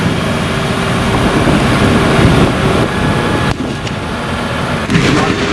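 Steady engine noise of a slow-moving open jeep, mixed with wind buffeting the microphone.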